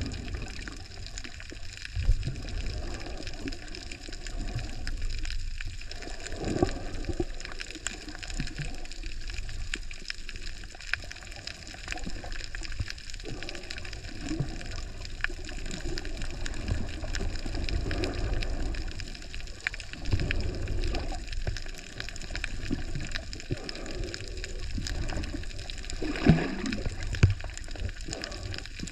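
Water sloshing and gurgling, heard muffled through an underwater camera's housing, over a steady low rumble. There is a sharp knock about two seconds in and a louder burst of gurgling near the end.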